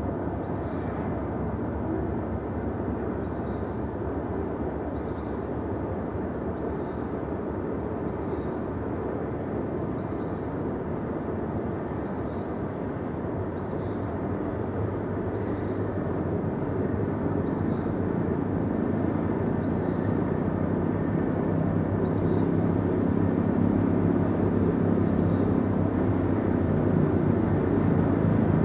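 Freight cars rolling over old bolted jointed rail at track level: a steady rumble of wheels on rail, with faint clacks about every one and a half to two seconds as wheel sets pound the loose joint. In the second half, an engine drone grows steadily louder.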